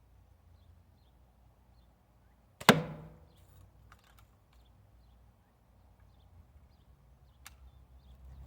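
A single shot from a Daisy Red Ryder lever-action, spring-air BB gun: one sharp crack a little under three seconds in, with a short ringing tail. Fainter clicks come about a second later and again near the end.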